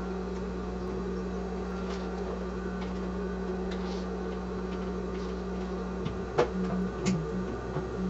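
Sewing machine running at a steady speed, stitching a topstitch seam along a zipper channel. About six seconds in the hum breaks off with a couple of sharp knocks, then picks up again.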